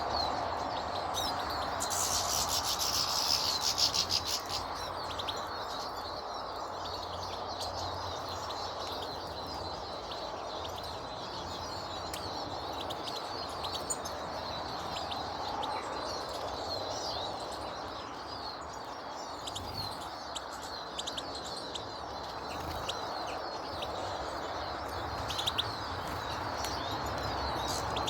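Many small garden birds chirping and twittering, with a louder burst of rapid high chatter about two to four seconds in, over a steady background noise.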